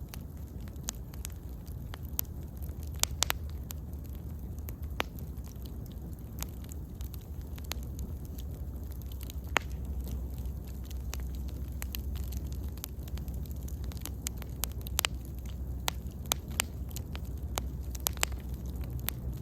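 Wood bonfire burning: irregular sharp crackles and pops of the burning wood over a steady low rumble.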